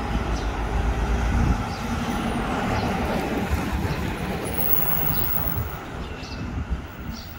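A road vehicle passing, its engine and tyre rumble loudest about a second and a half in and then slowly fading away.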